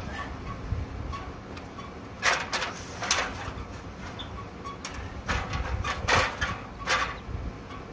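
Aluminium step ladder clanking as it is carried in and set down against a wooden fence post: a series of sharp metallic knocks and rattles, about half a dozen, coming in two clusters.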